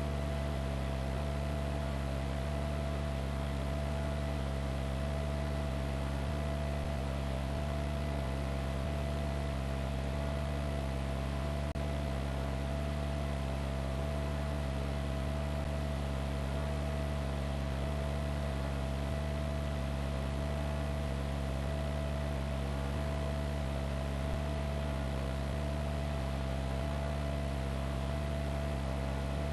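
Steady drone of a helicopter heard from on board: a low, pulsing throb with a constant whine above it and an even hiss, unchanging throughout.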